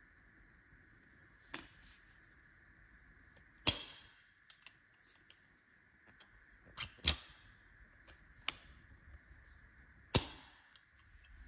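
Sharp metal clicks from the folding crank handle of a Timemore Chestnut C3 ESP Pro hand coffee grinder as it is snapped open and shut, each with a short ring. About six clicks, the loudest about four seconds in, with faint small ticks between them.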